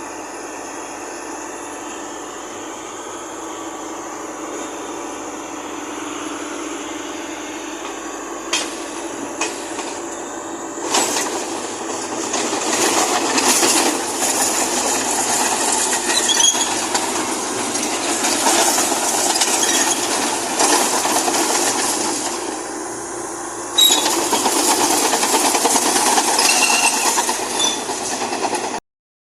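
Komatsu D31E crawler bulldozer running, its diesel engine steady at first. About ten seconds in it turns louder, with continuous metallic clanking and short squeaks of the steel tracks as the dozer travels, and it grows louder again near the end.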